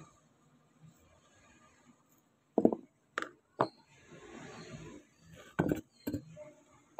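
Several sharp metallic knocks and clinks of compressor intake-valve parts being handled on a workbench: three about two and a half to three and a half seconds in, the first the loudest, then two more near the end.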